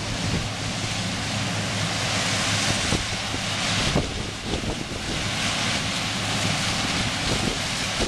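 Combine harvester running while it cuts standing corn, a steady low engine hum under a rushing noise that swells in the middle. Wind buffets the microphone.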